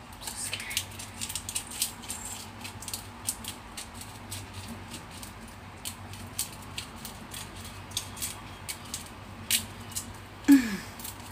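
Disposable salt grinder being twisted by hand over a frying pan, giving a long run of irregular crunching clicks as the crystals are ground. A short voice sound about ten seconds in.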